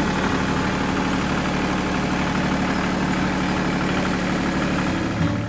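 Tractor engine running steadily at an even speed, with a constant hiss over it.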